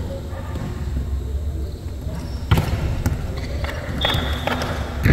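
A volleyball struck and bouncing on a hard indoor court: one sharp smack about halfway through and another at the very end, with a brief high squeak a little before the end.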